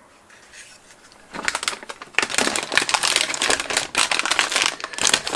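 Handling of packaging and parts in a foam-packed kit box: rapid crinkling of plastic bags mixed with small clicks. It sets in a little over a second in and runs on busily.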